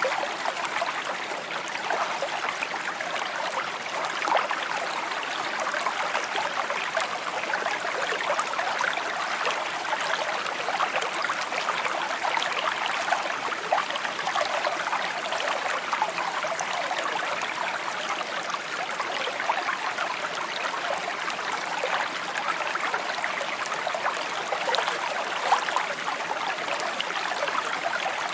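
A small shallow stream babbling steadily over stones, a continuous bright trickling and gurgling with many small splashes.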